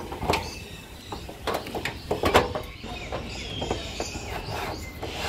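Irregular clicks, knocks and scrapes of an armoured cable being pushed up into a plastic MCB distribution box and handled at its entry, the loudest knock a little past the middle.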